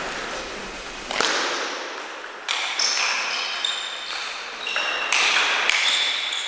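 Table tennis rally: the ball clicking off the bats and the table about every half second, with short high squeaks between the hits.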